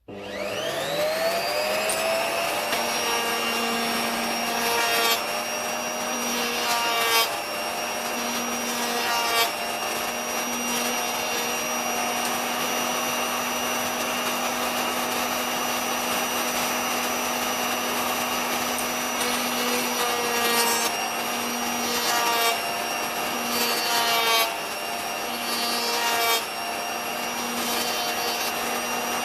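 Lidl router fitted as a homemade chamfering machine, switched on and spinning up with a rising whine, then running steadily at speed. Several short cutting passes break in as edges are run against the cutter: a few in the first ten seconds and more a little after twenty seconds, each a brief louder rasp.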